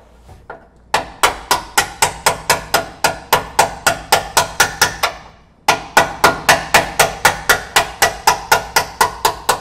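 A hammer striking a steel punch again and again, about four sharp metallic blows a second, to drive a lower control arm bolt out through its frame bracket. There are two runs of blows with a short pause about five seconds in.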